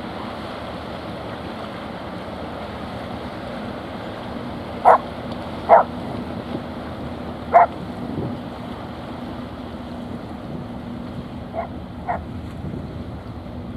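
Wind noise on the microphone over the sea at the shoreline, with a faint low steady drone. About five seconds in, three short, loud cries come in quick succession, and two fainter ones follow near the end.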